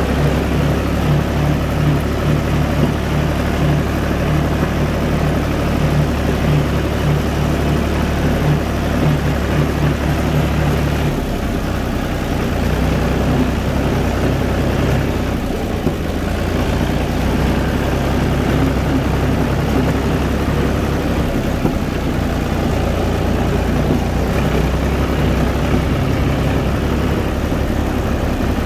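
UTB 445 four-wheel-drive tractor's diesel engine running steadily, its engine note shifting slightly about eleven seconds in.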